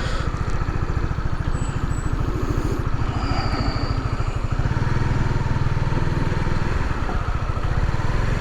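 Motorcycle engine running at low, steady revs, its exhaust pulses close and even without revving up or down.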